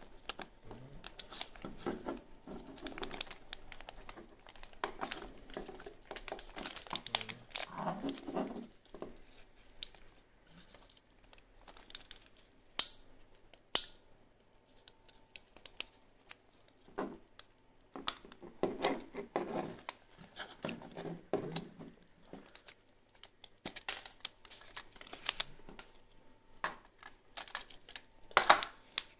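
Hands working an SJCAM SJ4000's clear plastic waterproof housing and its packaging. There is irregular rustling and crinkling, with a few sharp plastic clicks as the housing is unlatched and the camera is taken out.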